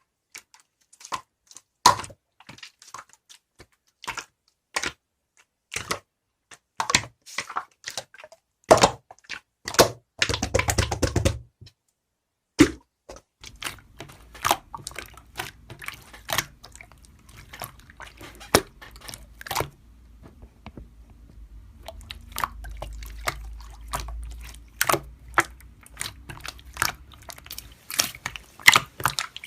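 Irregular sharp clicks and taps, with a short dense rattle about ten seconds in and a faint low hum through the second half.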